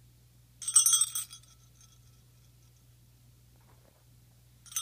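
A dog's metal collar tags jingling in two short bursts: a longer jingle about half a second in, with a brief ringing after it, and a shorter one near the end.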